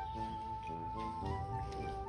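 Background music: a chord repeated in short even strokes about four times a second under a held high note, over a steady low beat.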